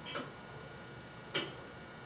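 Tower clock movement ticking in a slow, even tick-tock, the original mechanism still running: a softer tick then a sharper, louder one a little over a second later.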